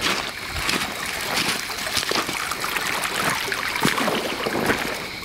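Footsteps crunching through dry leaf litter and gravel on a creek bed, a quick irregular run of crackles and crunches.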